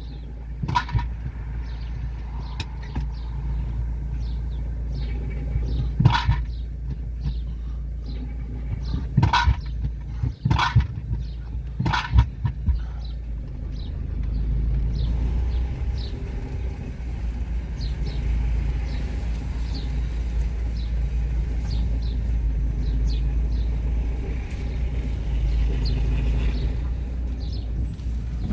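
Car engine and road rumble heard from inside the cabin while driving, a steady low drone that gets louder about halfway through. Several sharp knocks sound in the first half, with light ticking later; the owner takes the engine noise for something wrong with the car.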